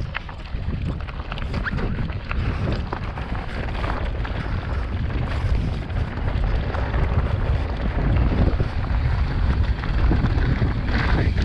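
Mountain bike rolling down a dry, loose dirt-and-stone trail: low wind buffeting on the microphone over the crunch and rattle of the tyres on gravel, growing louder as the bike picks up speed.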